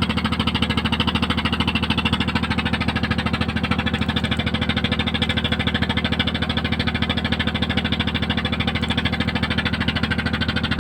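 Engine running steadily at an even speed, with a fast, regular throb.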